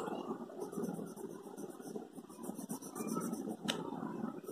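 Pen drawing on paper against a ruler: quick, closely repeated scratchy strokes, with one sharp click about three and a half seconds in.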